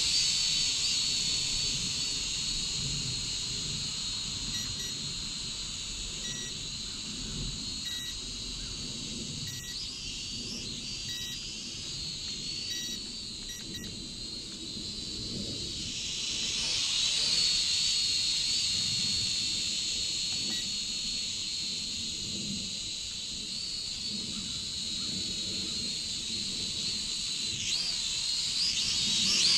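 AVIALOGIC H22 toy quadcopter flying: its small electric motors and propellers give a steady high whine whose pitch wavers as it speeds up and slows. The whine grows louder around the middle and again near the end.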